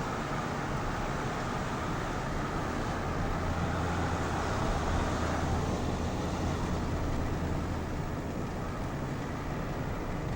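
Car driving along a road, its steady engine and road noise heard from inside the cabin.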